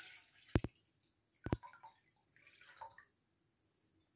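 Last drops of water falling from a glass jar into water in a saucepan: two clear drips about a second apart, then a fainter one.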